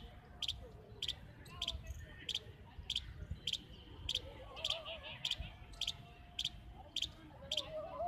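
Palm squirrel calling from a tree: a steady series of short, high-pitched double chips, about three every two seconds.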